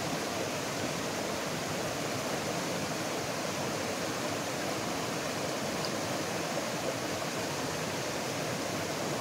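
Rocky stream rushing steadily over and between boulders, running high after a rise in the water.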